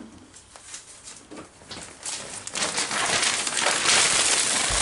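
Sheets of newspaper being crumpled by hand: a few faint rustles at first, then dense, loud crinkling from about halfway in.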